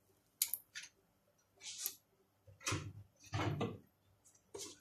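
A few faint clicks and knocks with short rustling bursts between stretches of quiet: kitchen utensils and items being handled beside an empty oiled frying pan.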